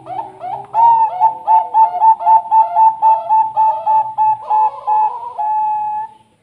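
Bangkok-bred zebra dove (perkutut) singing: a quick, even run of cooing notes, about three a second, ending in one longer held note.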